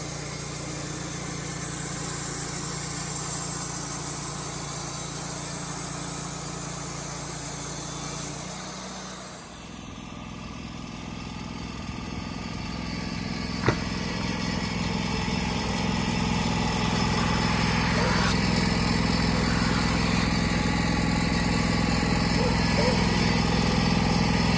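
Wood-Mizer LT35HD band sawmill running with its blade cutting through an oak cant, a steady engine under a loud high hiss. About nine seconds in the cutting hiss stops abruptly and the engine runs on steadily, with a single sharp click a few seconds later.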